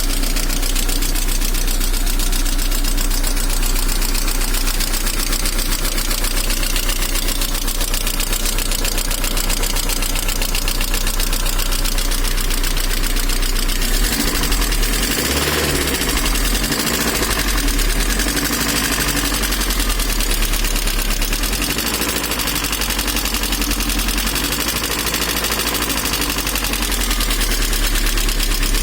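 VAZ-2112 engine idling with a rapid, steady knock running through it, which the owner hears mostly from the manifold side and cannot identify.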